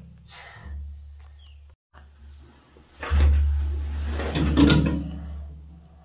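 A metal pipe wrench being set on and worked against a hose bib fitting at the bottom of a well tank: handling scrapes and clanks, loudest in the second half, with a few sharp knocks over a low hum.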